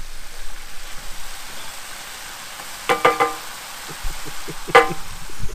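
Bolognese mince sizzling in a cast iron skillet on a portable gas cooker while a wooden spoon stirs it. Two short pitched sounds break in, about three and five seconds in.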